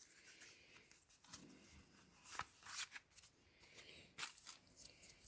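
Faint rustling and light clicks of Pokémon trading cards being handled.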